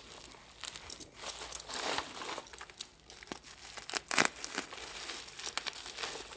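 Packaging crinkling and rustling in irregular bursts as it is handled, loudest a little past the middle.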